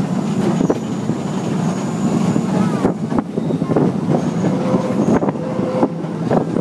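Red Bernina train running, heard from aboard an open carriage: a steady rumble of wheels on rail, broken by irregular clicks and knocks from the track.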